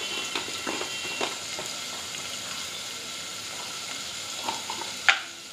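Chopped onions and tomatoes frying in oil in an open pressure cooker on a gas stove, with a steady sizzle. A few light clicks and knocks come over it, the sharpest near the end.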